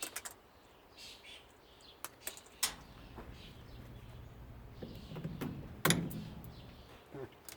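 Scattered sharp clicks and snips of wire cutters and hand tools working on a washing machine's small wiring and tie-downs, the loudest about six seconds in. Faint bird chirps and a low hum sit in the background from about a third of the way in.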